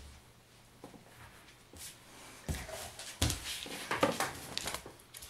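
Two dogs play-wrestling on a rug: quiet at first, then from about halfway a run of scuffles and knocks as they tussle.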